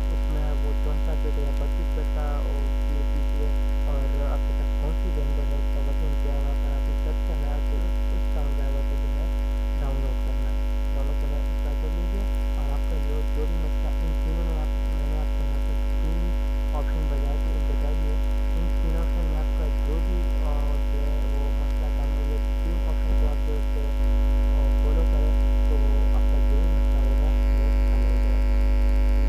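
Steady electrical mains hum, a low buzz near 50 Hz with a ladder of overtones, picked up on the recording. It gets a little louder about 24 seconds in.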